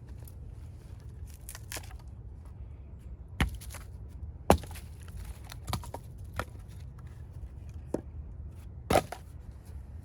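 Axe striking and splitting firewood rounds: about six sharp cracks at uneven intervals, the second of them the loudest.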